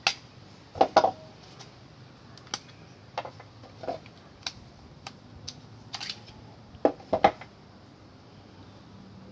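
Scattered clicks and knocks of a CZ 75 SP-01 pistol being handled, the loudest pairs about a second in and again near the end.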